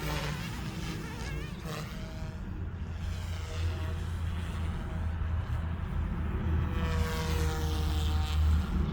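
Goosky S2 electric RC helicopter in flight: a whining motor and rotor note that wavers up and down in pitch as the throttle and tail shift. There is a steady low rumble underneath, likely wind on the microphone.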